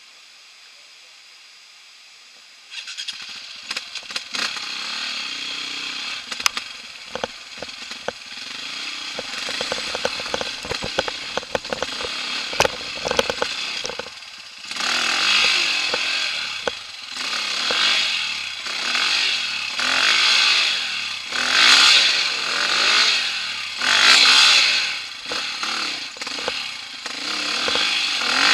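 Dirt bike engine running under load, coming in about three seconds in, with sharp knocks and clatter from stones. From about halfway, the engine revs up and eases off again about every two seconds as the bike works over the rocks.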